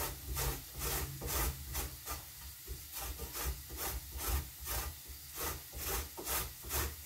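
Carrot being grated on a hand grater: even rasping strokes, about two a second.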